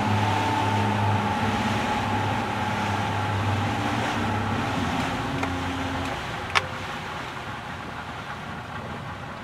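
Boat engine running steadily under way over a rush of wind and water, then easing off about six seconds in, with one sharp click just after.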